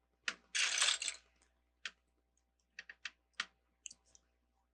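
Plastic LEGO bricks clicking and knocking as they are handled. A short dense rattle comes about half a second in, followed by scattered single clicks.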